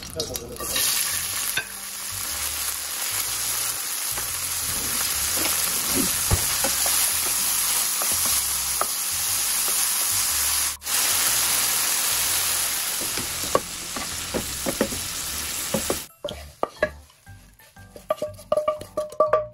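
Silkworm pupae and kaffir lime leaves sizzling in hot oil in a nonstick frying pan, stirred with a wooden spatula. Near the end the sizzle stops, and the spatula clicks and scrapes as the pupae are tipped onto a plate.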